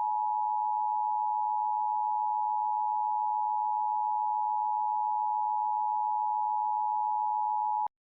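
Emergency Alert System attention signal: two steady tones sounded together just under 1 kHz, held unbroken and cutting off suddenly near the end. It is the alarm that announces a spoken emergency message.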